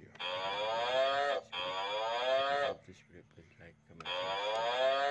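An animal's long, drawn-out calls: two in quick succession, then a third after a pause of about a second. Each lasts a little over a second and rises in pitch before falling away at the end.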